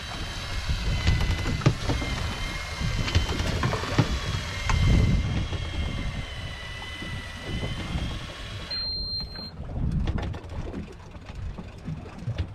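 Electric fishing reel's motor whining as it winds a fish up from depth, cutting off about nine seconds in, followed by a short high beep. Low rumble of wind and water under it.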